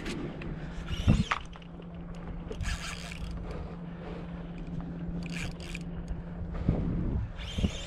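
Fishing tackle being worked aboard a kayak during jigging: short scrapes and clicks of the rod and spinning reel, at about one, three and five and a half seconds in and again near the end, over a steady low hum.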